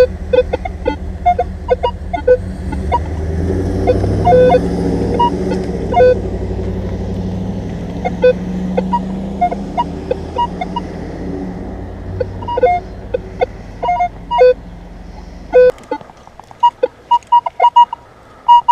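Minelab X-Terra Pro metal detector giving short beeps as it is swept, mostly low tones, over a steady low engine rumble. The rumble stops suddenly about three quarters through, and a quick run of higher-pitched beeps follows: a strong target signal.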